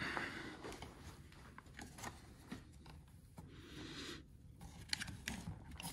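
Faint rustling, with a few light clicks and scrapes, as the wiring harness and the plastic mirror frame are handled while the wires are fed back through the mirror base.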